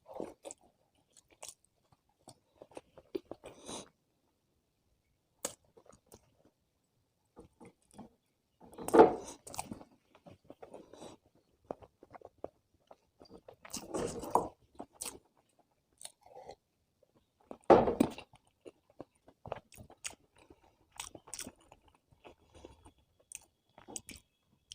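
Close-miked chewing and mouth sounds of a person eating, with scattered short clicks and three louder spells of chewing about 9, 14 and 18 seconds in.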